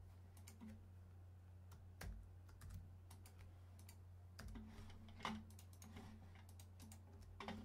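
A few scattered single clicks of a computer keyboard and mouse, over a faint steady low hum.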